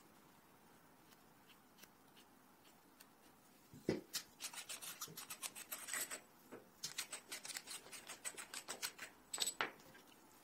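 Red Win riflescope adjustment turret being turned by hand, giving quick runs of sharp detent clicks, several a second, in two spells from about four seconds in, with one louder click near the end. The turret adjusts in half-MOA clicks.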